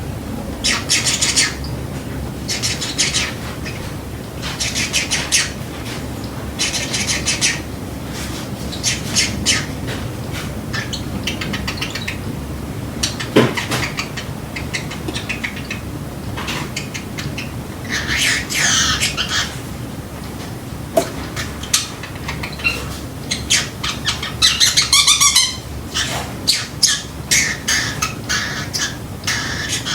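Pacific parrotlet mimicking an electronic timer's beeping: bursts of rapid, high chirps about a second long, repeated about every two seconds, then more irregular chirps and squawks.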